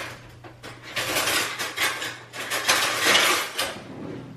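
Pots, dishes and utensils clattering in a kitchen, several bursts of clinking and knocking over about three seconds.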